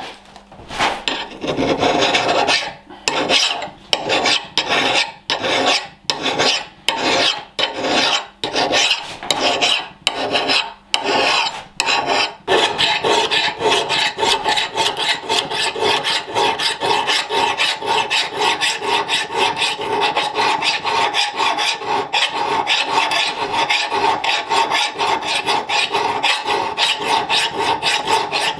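Medium-coarse steel file rasping across the steel cheek of an axe head, taking the cheek down to a flatter profile near the edge. Slow, separate push strokes at first; from about twelve seconds in the strokes come faster and run together, with a steady metallic ring.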